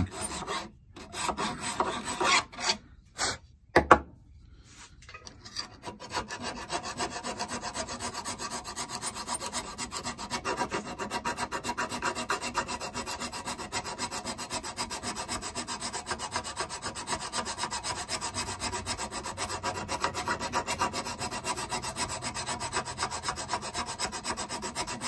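Hand file rasping across the cast-iron body of a bench plane, filing metal back to a scribed line. A few uneven strokes with short pauses come first, then steady back-and-forth filing from about six seconds in.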